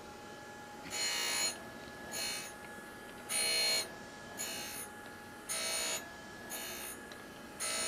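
6x18 surface grinder's wheel grinding a lapping plate: a buzzing screech in short bursts about once a second, as the reciprocating table carries the plate under the wheel, over the steady hum of the spindle.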